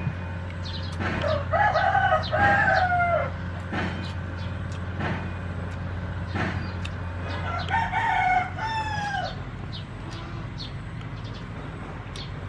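A rooster crowing twice, each crow about two seconds long, held level and then dropping at the end: one about a second in, the other past the middle.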